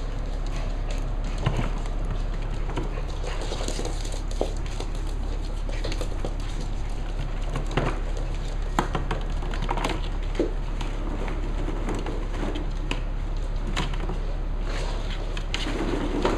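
Scattered light knocks, taps and scuffs of Cavalier King Charles spaniel puppies scrambling in a cardboard rolling tube and pushing plastic ball-pit balls on a wooden floor, over a steady low hum.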